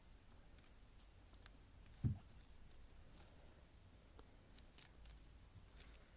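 Guinea pig nibbling a piece of corn on the cob held out by hand: faint, scattered crisp clicks of teeth on the kernels. One dull thump about two seconds in.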